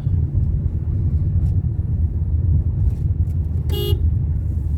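Steady low rumble of a vehicle on the road, with one short horn toot near the end.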